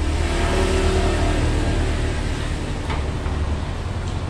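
A motor vehicle's engine passing, swelling over the first second or two above a steady low hum, with a single sharp click about three seconds in.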